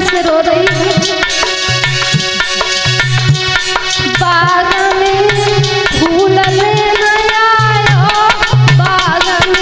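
A woman singing a slow, mournful lament-style devotional melody with gliding, wavering notes, accompanied by a hand drum beating a steady rhythm of deep strokes.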